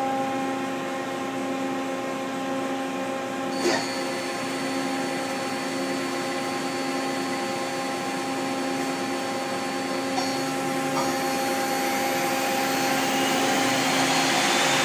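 1997 Mazak Quick Turn 20 CNC lathe spindle starting with a click about four seconds in and running at about 1,000 RPM with a steady whine over the machine's hum. Near the end it speeds up toward 3,000 RPM, the whine rising in pitch and the rushing noise of the spinning hydraulic chuck growing.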